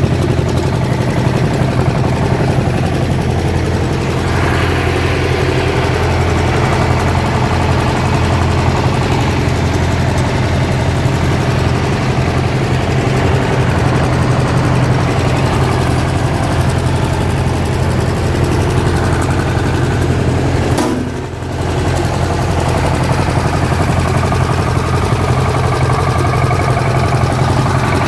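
Cast-iron Kohler garden tractor engine idling steadily, with a brief click and a momentary drop in level about three-quarters of the way through.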